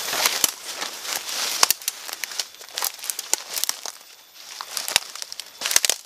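Leaves and undergrowth rustling and crackling as people walk through dense forest vegetation, brushing plants aside and stepping on dry leaf litter. The sharp crackles are irregular.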